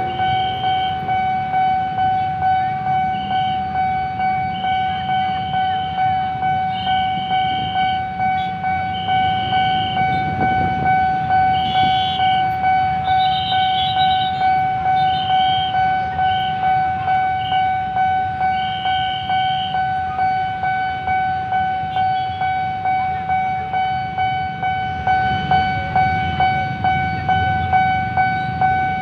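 Level-crossing warning alarm sounding continuously, one steady high electronic tone pulsing about twice a second, over the low rumble of idling motorbike engines.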